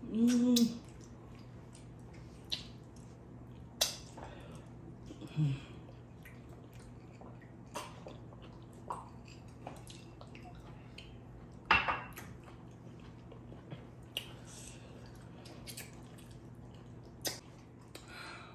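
Close-up eating sounds of people eating amala with ewedu and gbegiri: scattered wet mouth clicks, lip smacks and squishes of soft food, with a louder click about twelve seconds in. A steady low hum runs underneath, and a short voiced hum opens it.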